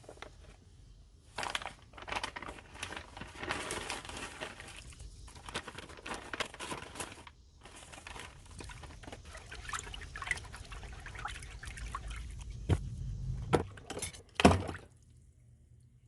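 Irregular scraping and handling noises from cleaning work on an old, rusty screwdriver, with a wet, liquid quality, and a few sharp knocks near the end.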